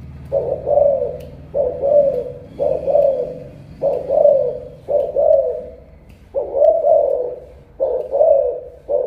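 Spotted dove of imported Malaysian stock cooing over and over, about one phrase a second, each a short note run into a longer one.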